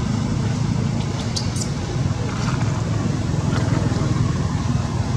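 A steady low engine drone, with two brief high chirps about a second and a half in.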